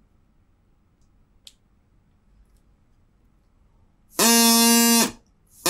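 A drinking-straw reed whistle, its end cut into a V, blown twice: a loud, buzzy, steady tone that dips in pitch as it cuts off, the first about four seconds in and the second starting near the end.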